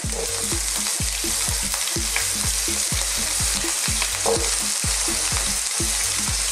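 Potato cubes, sliced red onion and garlic sizzling in hot olive oil in a frying pan: a steady, even frying hiss. A low regular pulse about three times a second runs underneath.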